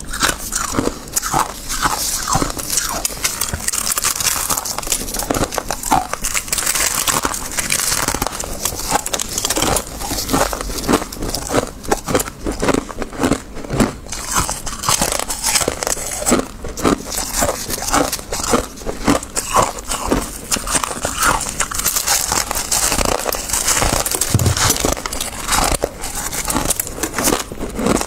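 Freezer frost being bitten and chewed, a dense unbroken run of crisp crunches and crackles.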